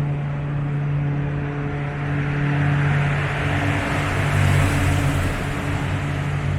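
A car driving past, its road noise swelling to a peak about four to five seconds in and then easing, over a steady low hum.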